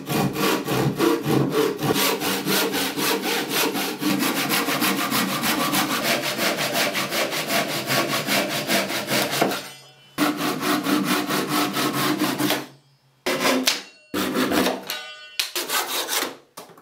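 Handsaw cutting through a wooden board in fast, steady strokes, taking corners off a round seat blank to rough out the circle. The sawing pauses about ten seconds in, runs again briefly, then ends in a few short bursts of strokes.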